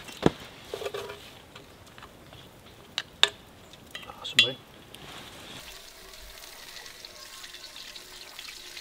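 A serving utensil scraping and clinking against a frying pan and steel plates as scrambled eggs are dished out, with several sharp knocks in the first half and one short metallic ring about four seconds in. After that there is a soft, steady hiss.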